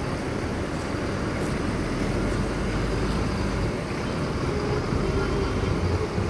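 Diesel engine of a Mercedes-Benz OH1626 coach running as the bus moves slowly off. It makes a steady low rumble that grows slightly louder, kept at low revs and not revved hard.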